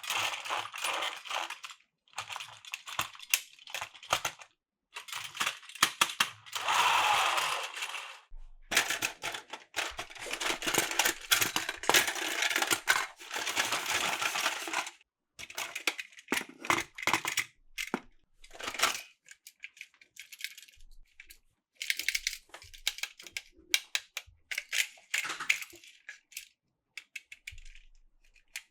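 Plarail plastic toy trains and track clicking and rattling, with irregular sharp clicks and two longer stretches of continuous rattling about a quarter and a half of the way through.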